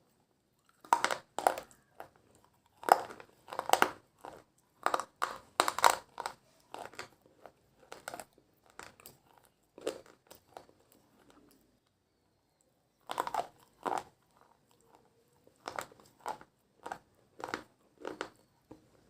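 Close-up crunching as slate pencils are bitten and chewed: sharp, brittle crunches in quick clusters, with a pause of a second or two about two-thirds of the way through before the chewing starts again.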